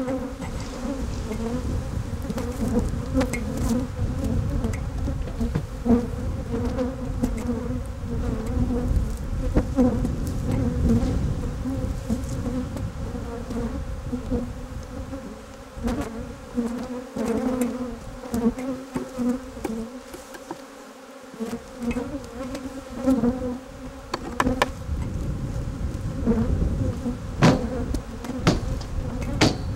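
Many honey bees buzzing around opened hives in a steady hum, with occasional sharp knocks and scrapes of a steel hive tool and wooden frames against the hive boxes, a cluster of the sharpest ones near the end.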